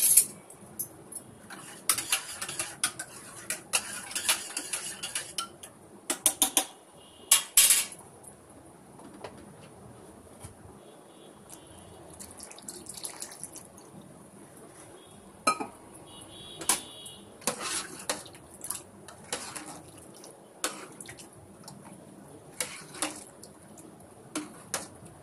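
A metal spoon or ladle clinking and scraping against a metal cooking pot while stirring coconut milk, with a busier run of clatter from about two to six seconds in and scattered single clinks after.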